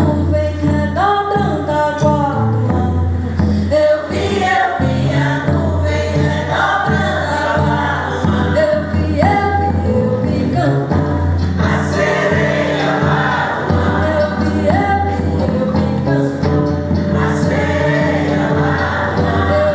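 Women's choir singing a folk chant with a lead voice. Underneath, a large double-headed drum is beaten with a stick and an acoustic guitar plays.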